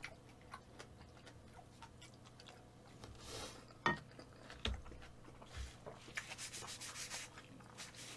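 Faint close-up eating sounds of black-bean-sauce (jjajang) kalguksu noodles: scattered wet chewing clicks, with a short slurp-like hiss about three seconds in and a sharper click just after. Near the end comes a longer soft rubbing hiss, as a tissue is wiped across the mouth.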